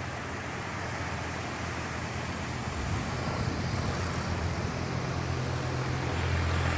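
Road traffic noise: a steady hiss with a low engine hum that grows louder toward the end.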